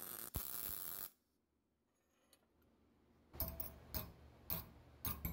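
Welding arc hissing and crackling, cutting off about a second in. After a short quiet, a string of sharp metallic taps, irregularly spaced about half a second apart: a hammer striking a bent steel piece clamped in a vise.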